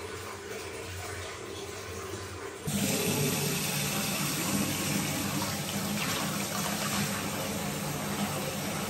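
Running water: a steady rushing hiss that jumps abruptly louder about three seconds in.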